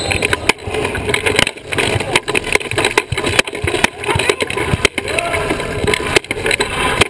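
Sports wheelchair rolling fast on a hardwood court, heard through its own frame: a rattling rumble with frequent knocks and clicks.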